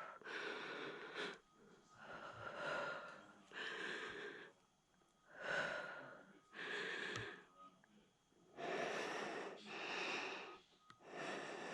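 A person breathing hard, with loud breaths in and out repeating about every second and a half.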